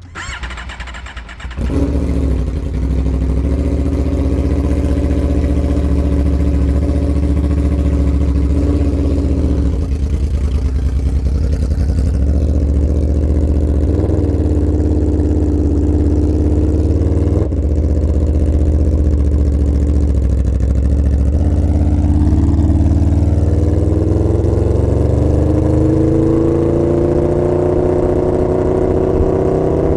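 V4 engine of a 2022 Aprilia RSV4 1100 through an SC-Project GP-22 titanium exhaust, loud from about a second and a half in. It runs at steady revs with a few brief blips in pitch, then the revs climb steadily over the last several seconds as the bike accelerates.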